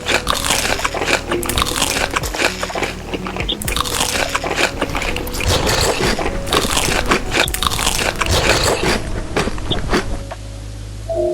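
Crunchy food being bitten and chewed: dense, irregular crunching and crackling that eases off near the end.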